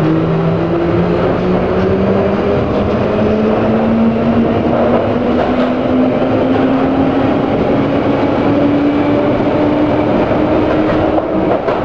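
London Underground 1967 Tube Stock train accelerating out of a station, heard from inside the carriage: a whine that rises steadily in pitch over the loud running rumble of the train.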